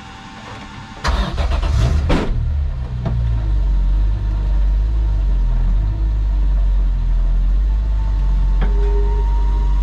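BMW E36 M3 race car's straight-six starting, heard from inside the cabin: about a second in it cranks and catches with a brief rev flare, then settles into a steady idle.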